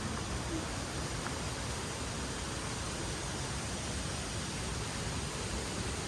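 Steady rushing of water flowing in a small rocky stream, an even hiss without breaks.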